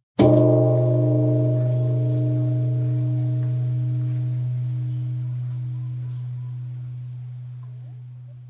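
Buddhist temple bell struck once just after the start, then ringing with a deep hum and several wavering overtones that fade slowly over the following seconds.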